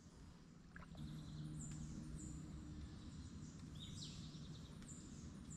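Faint mangrove-river ambience: birds give short, high chirps now and then, with one lower call near the end. Under them is a low, steady hum that comes in about a second in.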